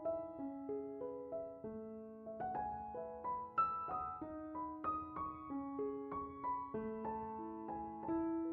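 Background music: a gentle solo piano melody, notes struck and left to ring over slow bass notes.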